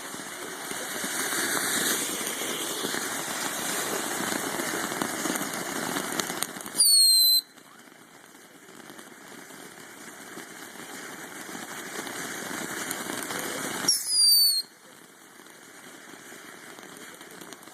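Ground fireworks going off: a rushing, crackling hiss that builds up, broken twice (about seven seconds in and again about seven seconds later) by a short, loud whistle falling in pitch that cuts off sharply.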